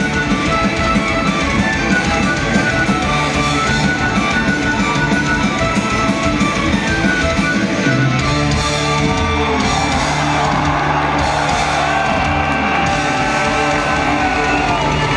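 Folk metal band playing live: a fiddle melody over distorted electric guitars and drums.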